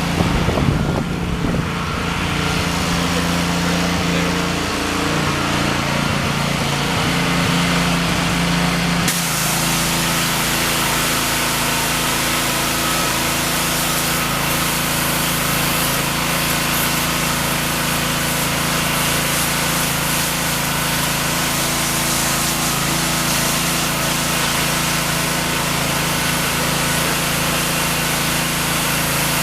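Gas-engine pressure washer running steadily; about nine seconds in, a loud steady hiss of spraying water joins the engine hum and holds, as the house's siding is washed to see whether it comes clean.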